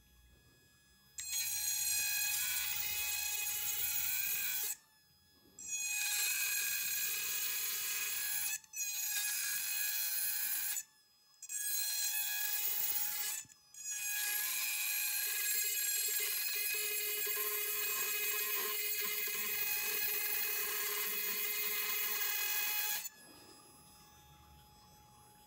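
Handheld electric rotary grinder with a coarse-grit bit grinding into hard jade rough under a water drip, its motor whining steadily. It starts about a second in, stops for four short pauses, and cuts off a couple of seconds before the end.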